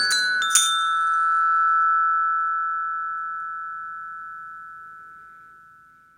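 Closing notes of a song on a bright chime-like instrument: a few notes struck in the first second, then the final chord rings on and fades away slowly.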